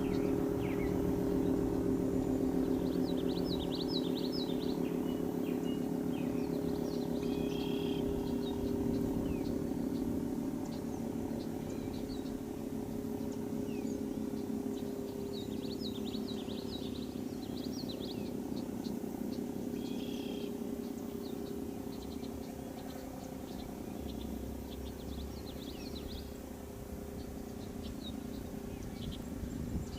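Federal Signal 3T22 three-tone outdoor warning siren winding down after its test, a low droning chord slowly sagging in pitch and fading as the rotor coasts. Birds chirp throughout.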